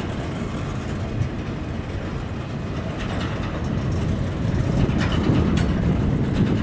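Empty intermodal well cars of a freight train rolling past, a steady rumble of wheels on rail with a few sharp clicks, growing a little louder in the second half.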